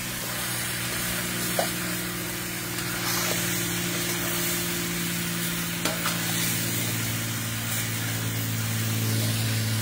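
Pieces of geera (cumin) turkey sizzling steadily in hot oil in a pot as they fry down (bunjay), with a few light clicks like a spoon against the pot. A steady low hum runs underneath.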